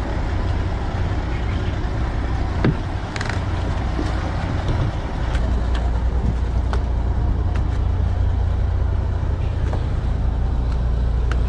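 Boat engine running steadily with a low rumble that grows louder about halfway through, with a few sharp knocks from gear on deck.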